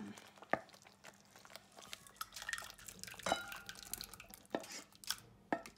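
Thick spinach curry being scraped out of a frying pan into a glass bowl with a wooden spatula: wet plops and scraping, with a few sharp knocks on the pan and dish.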